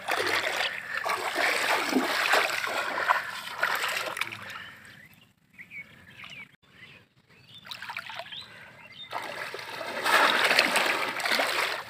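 Shallow water splashing and dribbling as a person wades and handles a bamboo fish trap. The splashing dies away about five seconds in, then comes back loud near the end as he strides fast through the water.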